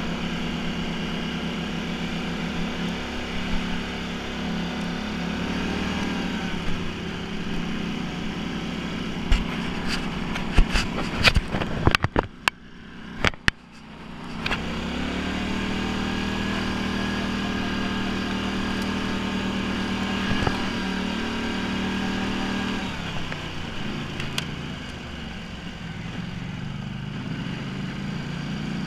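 ATV engine running steadily under way, heard from the handlebars. About ten seconds in, a run of sharp knocks comes as the machine jolts over bumps, and the engine nearly drops out for a moment. It then revs back up, runs steadily again and eases off a little near the end.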